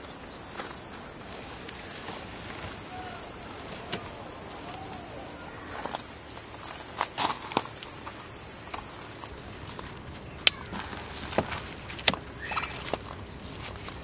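Steady high-pitched buzzing of summer insects, dropping in level about nine seconds in. In the second half come a few sharp clicks and taps as a black tent tie-down strap and its buckle are handled at the car's rear wheel.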